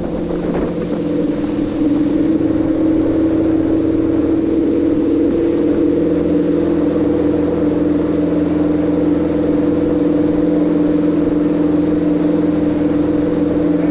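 Wake boat's inboard engine running under way while pulling a wakesurfer, over the rush of the wake; the engine note rises a little about two seconds in, then holds steady.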